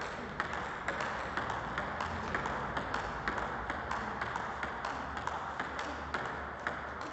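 Table tennis rally: the ball clicking off paddles faced with DHS Hurricane 8 rubber and bouncing on the table in a steady back-and-forth rhythm, about two hits a second.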